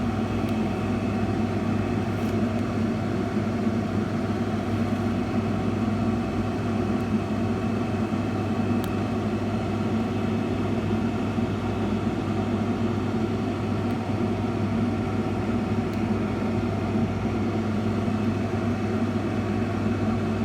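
A steady, unchanging low machine hum with a few faint ticks.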